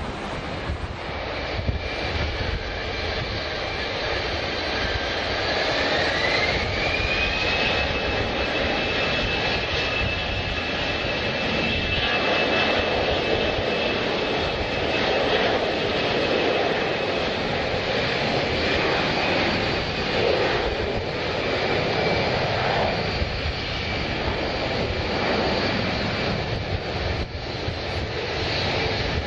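Jet airliner engines running. A whine rises in pitch about six seconds in, holds steady, and fades near the end.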